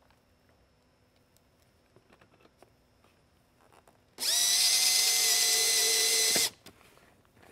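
Cordless drill-driver starting about four seconds in, quickly spinning up to a steady whine for about two seconds, then stopping abruptly, as it drives a screw that fastens the beacon's dome to its base. A few light handling ticks come before it.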